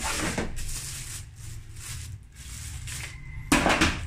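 Cardboard packaging and a clear plastic bag rustling and crinkling as hands unpack a new drill from its box, with a short louder burst of crinkling about three and a half seconds in. A low steady hum runs underneath.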